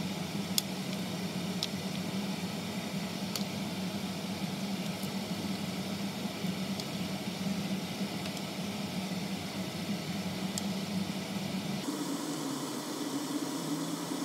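Sweet and sour chicken simmering in a frying pan, a steady hiss over a low hum, while a wooden spatula stirs and tosses it, giving a few light clicks against the pan. Near the end the hum shifts to a slightly higher pitch.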